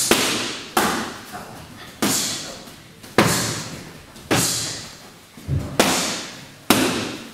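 Boxing-gloved punches landing on an instructor's focus mitts: about eight sharp slaps, roughly one a second at an uneven pace, each followed by a ringing echo in a large hall.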